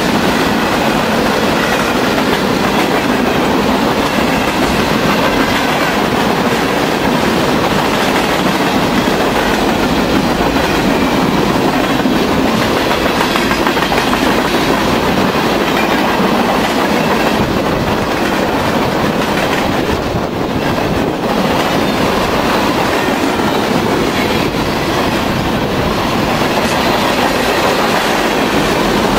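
Freight train cars rolling steadily past: continuous rumble and rattle of steel wheels on the rails, with a brief slight lull about twenty seconds in.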